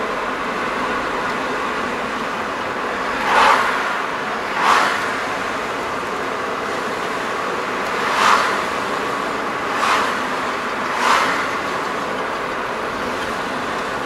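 Steady road and tyre noise of a car driving, heard from inside the cabin, with five brief louder swishes spread through it.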